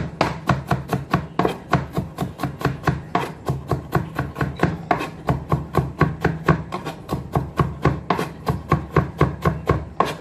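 Kitchen knife rapidly chopping garlic on a cutting board to mince it fine, a steady run of about five even blade strikes a second.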